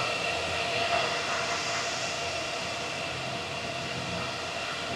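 Steady whir of many running Bitcoin ASIC miners' cooling fans: a constant rush of air with a few steady high tones over it.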